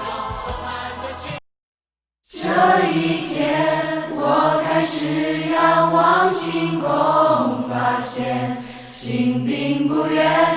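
Choral music with singing voices that cuts off abruptly about a second and a half in; after about a second of silence, a new piece of music starts with sung vocal lines.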